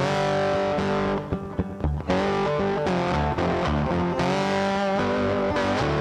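Background rock music led by electric guitar with distortion, dropping briefly in level about a second in before coming back in full.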